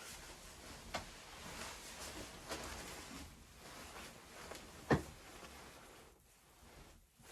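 Faint rustling and handling noises with a few light clicks, and one sharper knock just before five seconds in.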